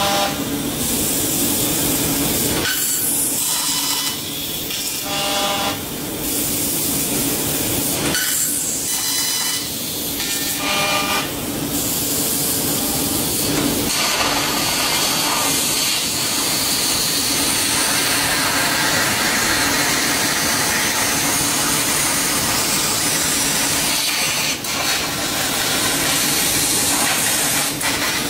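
A 20 kW fiber laser cutting 45 mm carbon steel plate: a steady, loud hiss of the assist-gas jet blowing molten metal through the cut. Short high tones sound now and then in the first half.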